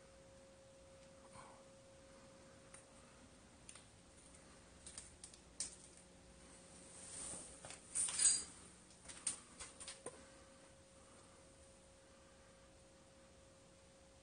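Footsteps crunching and clicking over a debris-strewn floor, with a louder cluster of crunches and knocks about eight seconds in. A faint steady high hum runs underneath.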